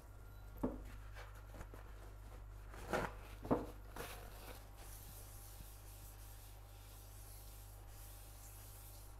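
A non-stick frying pan clunking a few times as it is handled and set down on a glass induction hob, the loudest knock about three and a half seconds in, then soft rubbing as the pan is wiped out by hand, over a low steady hum.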